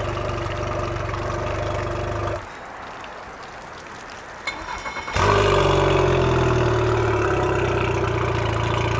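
Mercury 115 outboard motor running on test after a water pump impeller replacement. It cuts out about two seconds in, then after a few short sputters it comes back louder about five seconds in and runs steadily.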